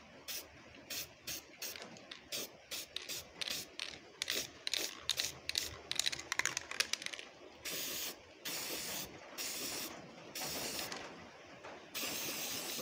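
Aerosol can of Slip Plate dry-film graphite lubricant spraying onto a steel engine-stand mounting head. It gives many short puffs in quick succession, then several longer sprays of about a second each in the second half.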